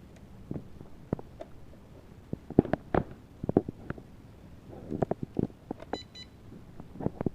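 Irregular plastic clicks and knocks from a small drone's parts being handled and fitted, with a short electronic beep about six seconds in.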